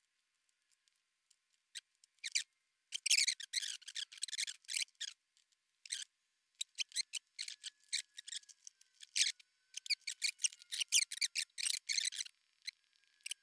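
Hand tools working insulated hookup wire: an irregular run of short, crisp snips and scrapes as the leads and heat-shrink tubing are cut and stripped.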